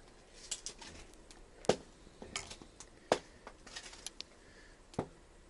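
Dishes and utensils being handled: scattered sharp clicks and knocks, about six of them, roughly one a second, some with a short ring.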